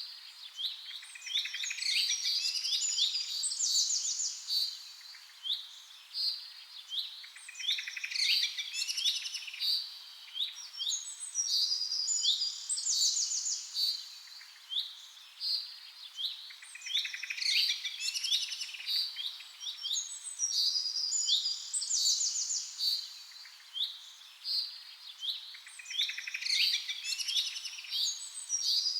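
Birdsong: many small birds chirping and trilling in high, quick notes, with a dense burst of song coming back every eight or nine seconds.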